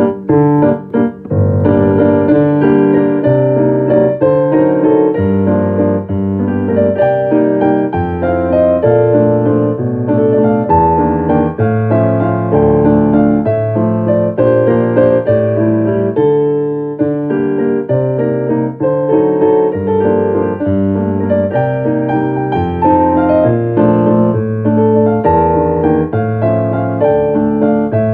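Solo piano playing a continuous melody over chords and a low bass line that changes about every second.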